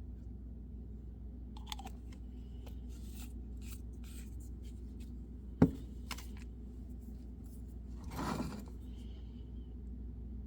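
Carving knife cutting into white birch: a series of short scraping cuts, a sharp knock about halfway through, and a longer rasping cut near the end, over a steady low hum.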